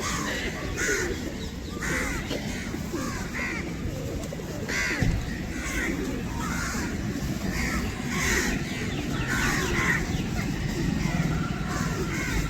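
A large flock of birds calling together, many short harsh calls overlapping without a break.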